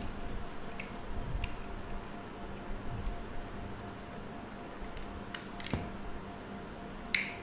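Scattered small clicks and scrapes of a screwdriver turning terminal screws and of a plastic switch being handled, with a sharper click near the end, over a faint steady hum.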